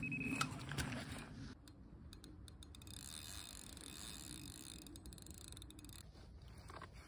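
Electronic carp bite alarm sounding one steady high tone that cuts off about half a second in, the signal of a fish taking the bait. After that, quieter handling noise and scattered clicks while the fish is played on a bent rod with a spinning reel.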